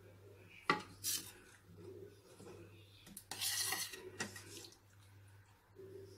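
A metal ladle clinking and scraping against a stainless steel pot as chickpea curry is scooped out: a sharp clink under a second in, another just after, and a longer scrape a little past halfway, over a faint steady low hum.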